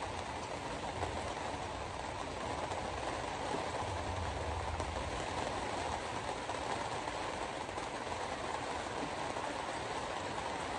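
Steady rushing noise with a low rumble underneath and no distinct events.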